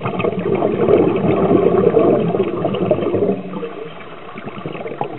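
Scuba diver's exhaled air bubbling out of a regulator, heard underwater: a rush of bubbling for about three seconds that then falls away.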